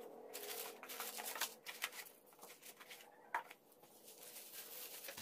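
Faint rustling and light clicking of a cardboard box and plastic bags being handled as a fog light and its cable are unpacked, with a few sharper clicks partway through.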